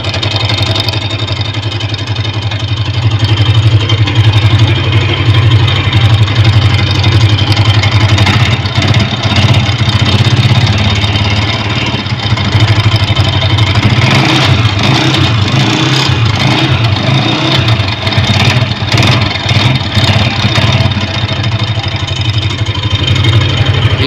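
Honda CG 125 single-cylinder engine idling, heard close to the cylinder head, with a fast, even clatter over the idle. The noise comes from a loose flywheel (magneto rotor) whose welded hub repair has broken, letting it wobble.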